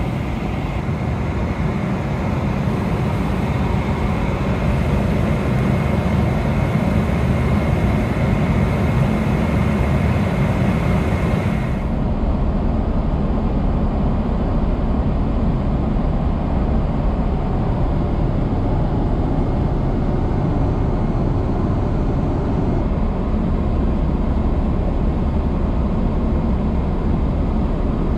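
Steady cabin noise of a Boeing 777-300ER airliner in cruise: an even, deep rush of engine and airflow noise. About twelve seconds in it changes abruptly, the higher hiss dropping away while the low rush carries on.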